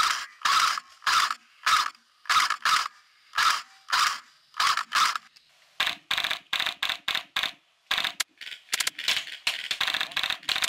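Airsoft rifles firing: about ten single shots at an even pace, roughly two a second, then from about six seconds in quicker, sharper shots that run into short rapid bursts.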